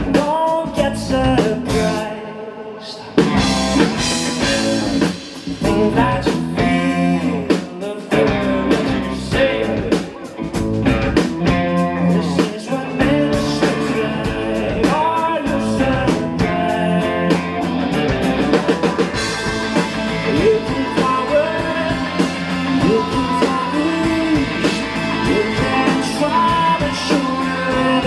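Live rock band playing: electric guitar, drum kit and a singing voice, with a brief drop in the sound a couple of seconds in before the full band comes back.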